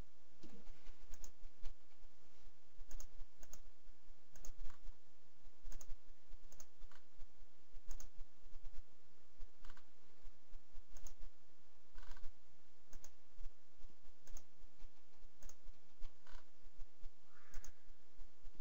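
Computer keyboard typing and mouse clicks: short, irregular clicks while a web form is filled in and submitted.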